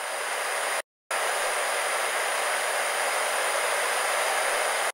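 Analog TV static: a steady hiss of white noise. It swells in, drops out for a split second about a second in, then holds steady and cuts off abruptly near the end.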